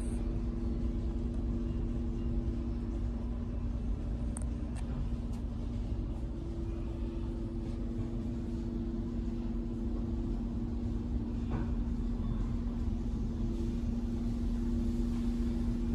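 Steady low rumble with a constant two-note hum, heard from inside a car's cabin: the machinery of a tunnel car wash (Coleman Hanna equipment) running as the car enters the tunnel.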